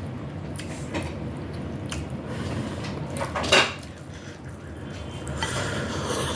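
Cutlery and dishes clinking during a meal: a few sharp clicks, the loudest about three and a half seconds in, and a brief rustling scrape near the end.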